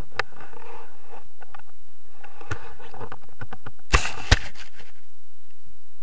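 Handling noise of a camera being moved against clothing and grass, rustling and clicking, with two sharp knocks about four seconds in as it comes to rest on the ground.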